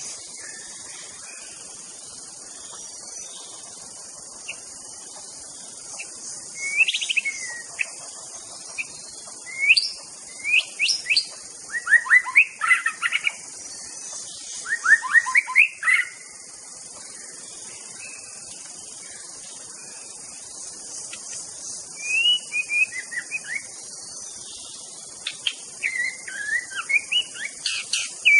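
White-rumped shama singing in bursts of quick, rising and falling whistled and chattering phrases, starting about six seconds in, pausing for several seconds and resuming near the end. A steady high insect drone runs underneath.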